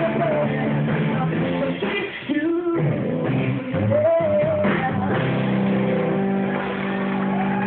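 Live rock band, with electric guitar, bass guitar and drums, playing behind a young woman singing. There is a brief dip about two and a half seconds in, and a held, wavering note about four seconds in.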